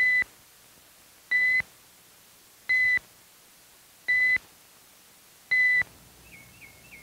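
Five short electronic beeps, evenly spaced about a second and a half apart, each a single steady high tone. They work as a timer marking off the few seconds given to decide whether to shoot.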